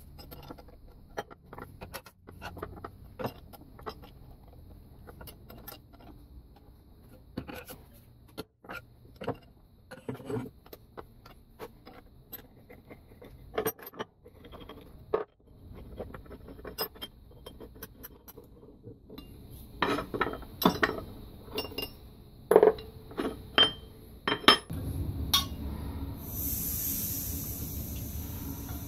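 Metal clinks and knocks of hand tools and loose parts of a cast-iron bench vise being worked and taken apart, with louder clanks crowding together about two thirds of the way through. A steady hiss comes in near the end.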